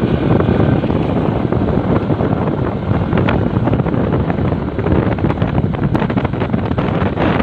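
Loud, steady wind buffeting on a phone microphone from riding in the open on a moving vehicle, crackling and rumbling, with vehicle noise underneath.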